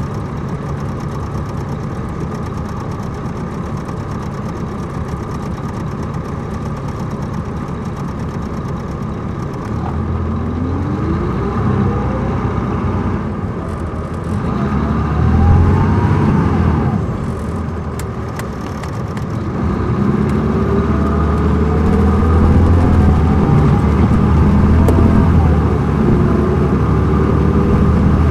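Caterpillar C13 ACERT diesel engine of a 2007 MCI D4500CL coach bus running steadily at low revs for about ten seconds. The note then rises in pitch as the bus accelerates, eases off for a few seconds, and climbs again through the later part.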